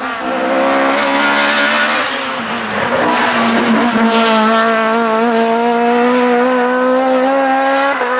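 A car engine held at steady high revs with tyres squealing and skidding, like a car sliding under power. The pitch holds nearly level with small wobbles, and the tone shifts slightly about four seconds in.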